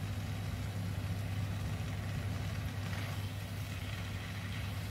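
Steady low hum of a running kitchen appliance, with quiet tossing of stir-fried noodles and cabbage with metal tongs in a non-stick pan.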